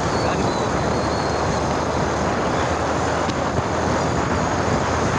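Motorcycle riding along at road speed, heard from the rider's seat: a steady, unbroken rush of engine, road and wind noise.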